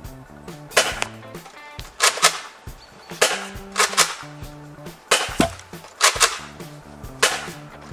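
Nerf Rival blaster firing foam balls: a string of sharp cracks about once a second, shots and balls smacking the target, over background music.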